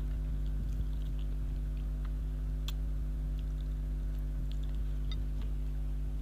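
Close-up chewing with small scattered mouth clicks from eating tender chicken feet with rice, over a steady low electrical hum.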